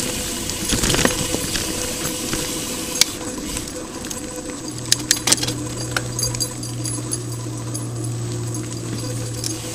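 Mountain bike rolling over a dirt forest trail: steady trail noise with the chain and bike parts rattling and clinking, a few sharp knocks around the middle, and a low steady buzz from about halfway.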